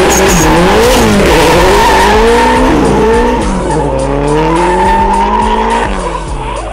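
Drift car's engine revving hard, its pitch swinging up and down as the throttle is worked, with tyres squealing. Near the end the revs climb slowly, then drop away about six seconds in.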